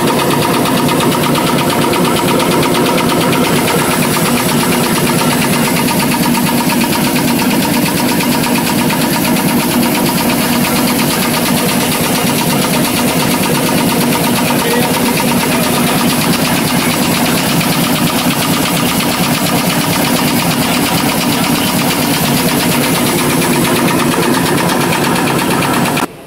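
Automatic N-fold hand towel paper machine running: a loud, steady mechanical clatter with a fast, even rhythm over a steady hum. It cuts off suddenly near the end.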